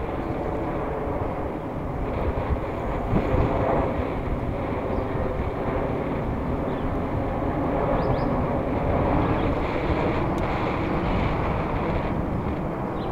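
Wind rushing over the microphone of a bike-mounted camera while riding, mixed with the rumble of bicycle tyres on asphalt. A few sharp knocks come about three seconds in.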